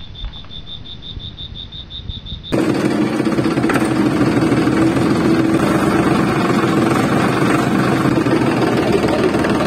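Tractor diesel engine sound running loud and steady, starting abruptly about two and a half seconds in. Before that there is a quieter stretch with a faint, rapid, high ticking.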